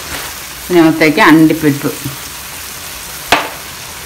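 Onions, tomatoes and spices sizzling in oil in an aluminium kadai as they are stirred with a steel spoon, with one sharp clink of the spoon against the pan about three seconds in.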